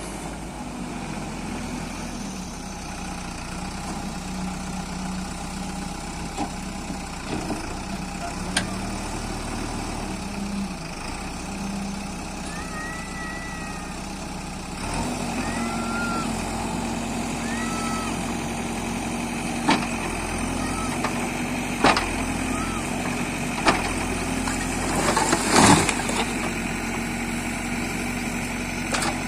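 JCB 3DX backhoe loader's diesel engine running steadily, rising to a higher, louder note about halfway through. Several sharp knocks and one louder crash near the end sound over it as the machine works on the old building.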